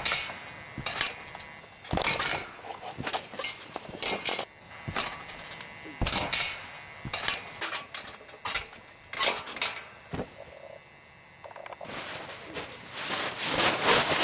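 Irregular rustling, clicks and knocks of people moving about in a tent among bedding, with a longer stretch of rustling near the end.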